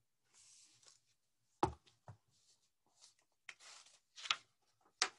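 A picture book being handled and its pages turned: faint paper rustles and scrapes, with a sharp knock about a second and a half in.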